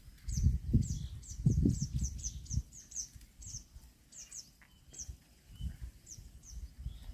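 A small bird chirping: quick runs of short, high chirps that slide downward, thickest in the first three seconds and then scattered. Loud, low, muffled thumps come under the chirps in the first two and a half seconds.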